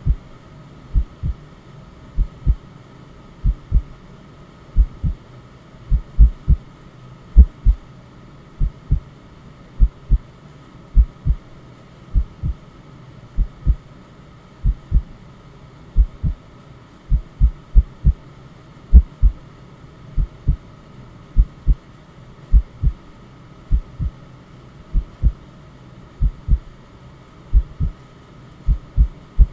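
Heartbeat sound, a low lub-dub double thump repeating evenly about every second and a quarter, over a steady bed of white noise.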